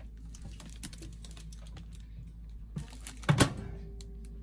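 Light clicks and taps of food being set inside a microwave oven, then the microwave door shut with a sharp double clack about three seconds in. A faint steady hum follows.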